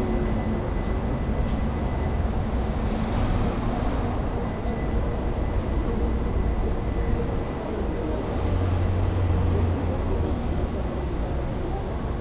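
Street traffic: motor vehicles running and passing in a steady wash of road noise, with a deeper engine hum that comes up for about two seconds after the middle.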